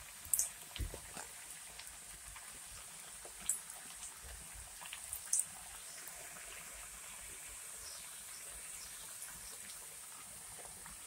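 Pitha dough frying in a pan of hot oil: a quiet, steady sizzle with a few brief crackles.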